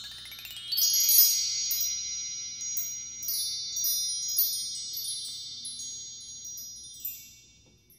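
Magical chime sound effect: a quick upward sweep of bell-like tones, then a glittering shimmer of high chimes that rings on and slowly fades away.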